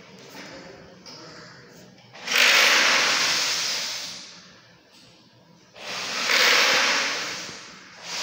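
Rushes of air noise close to the microphone, twice, each about two seconds long, coming on suddenly and fading away, with a third starting at the very end.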